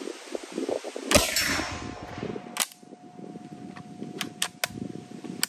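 Beretta Model 38/42 submachine gun fired single shots in semi-auto, 9mm: one loud sharp shot about a second in that rings out and fades, then a weaker crack about a second and a half later. A few faint cracks follow near the end.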